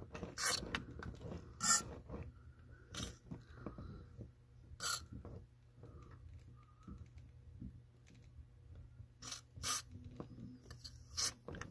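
Aerosol lubricant can with a straw giving about seven short hissing squirts, a second or more apart, with a longer pause in the middle. The lubricant is sprayed onto a stuck raw water pump impeller to loosen it for removal.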